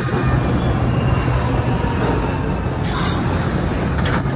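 NJ Transit Arrow III electric multiple-unit commuter train passing, loud and steady: wheels rumbling on the rails with a low hum underneath, and two sharp clicks about three and four seconds in.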